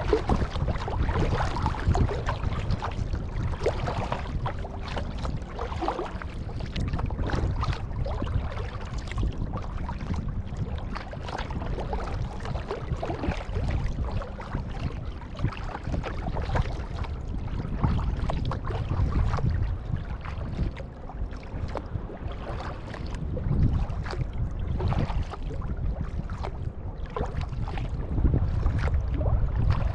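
Water splashing and sloshing around a kayak as it is paddled, over a steady low rumble of wind on the microphone.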